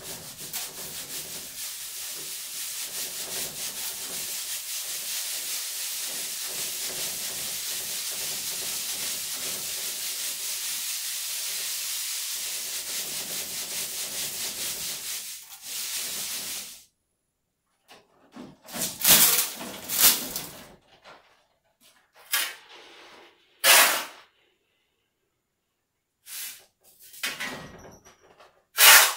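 Sand hissing as it is shaken through a round mesh sieve hung on ropes. The steady rushing hiss flickers with each shake and stops abruptly about 16 seconds in. Several short, louder bursts of noise follow.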